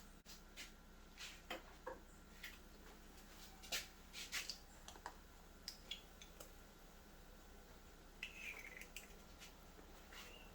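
Faint, irregular clicks and light taps of kitchen items being handled, with a brief scratchy scrape about eight seconds in, over a low steady room hum.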